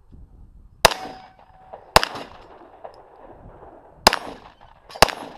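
Four handgun shots fired at uneven intervals, each with a short echo; the first is followed by a brief ringing tone.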